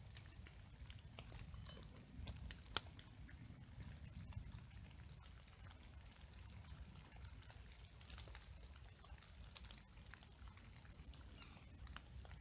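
Faint, scattered ticks of light rain falling over a steady low rumble, with one sharper tick about three seconds in.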